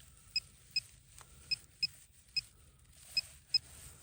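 Short, high-pitched electronic beeps from a metal-detecting pinpointer, seven in all, coming irregularly at about two a second as it is passed over the dig.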